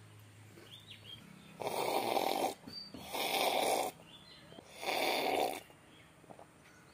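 Three slurping sips of a hot Horlicks drink from a mug, each just under a second long, with short pauses between.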